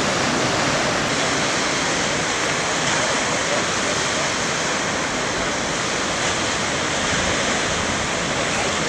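Ocean surf: waves breaking along a rocky point, a steady, even wash of noise with no distinct crashes standing out.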